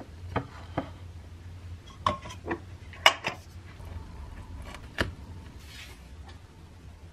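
Several sharp clicks and knocks of a small kitchen knife and a wooden bowl as a sandwich in a crusty bread roll is cut in half; the loudest knock comes about three seconds in, with a short scratchy rasp near the end.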